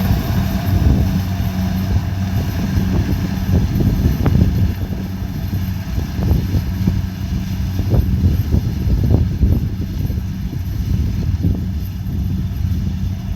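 Kubota DC70 Pro combine harvester running steadily while harvesting rice, a constant engine hum with many irregular low thumps over it.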